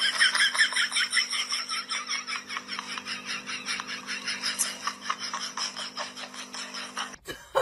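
Ostriches pecking at a plastic basin, a rapid run of sharp taps and clatters several times a second, over a steady low hum.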